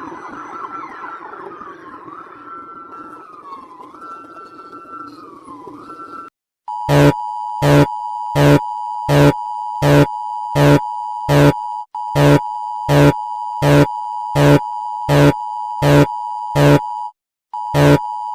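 Emergency Alert System (EAS) alarm. It opens with a wavering, gliding siren-like tone for about six seconds. After a short break comes a steady two-tone alert signal with loud beeps pulsing over it about three times every two seconds, cutting out briefly near the end.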